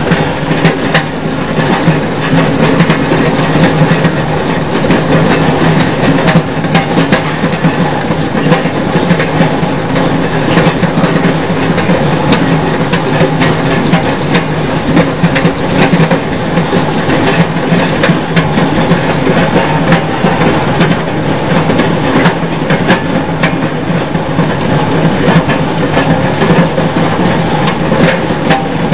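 Stainless-steel potato peeling machine running: a steady motor hum under a constant loud rattle of potatoes tumbling and knocking against the drum, with many sharp knocks, and water running into the drum.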